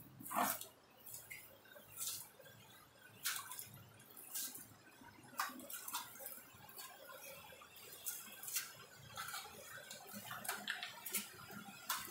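Water dripping inside a rock cave: irregular single drops, roughly one every half second to second, over a faint hiss. The loudest drop falls about half a second in.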